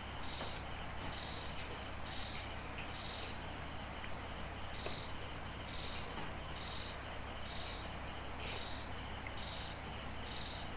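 Insect chirping steadily in an even, repeating rhythm, about three short high chirps every two seconds, over a faint background hiss.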